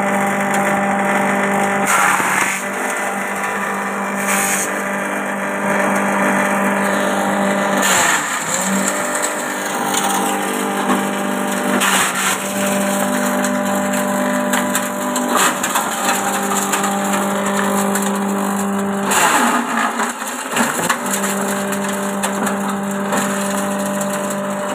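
JG125 multi-purpose chopper driven by a 2 hp electric motor, humming steadily while grass stalks are fed in and chopped with crackling, splintering bursts every few seconds. About three quarters of the way through, the hum sags in pitch under a heavy bite, then picks back up.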